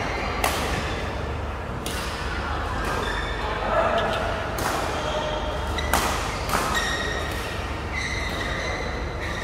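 Badminton rackets striking a shuttlecock in a doubles rally: a string of sharp smacks, roughly one every second or so, the loudest about six seconds in, echoing in a large hall.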